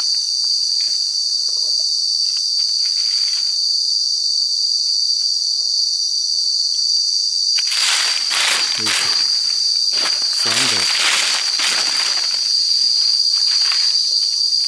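Steady, high-pitched chorus of insects droning in the forest. Bouts of rustling and crackling come through it between about eight and twelve seconds in.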